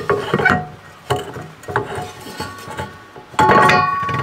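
A boat propeller being worked onto a stern drive's splined propeller shaft by hand: a run of metal knocks, clinks and scrapes. About three and a half seconds in comes a louder clank that leaves a ringing metallic tone.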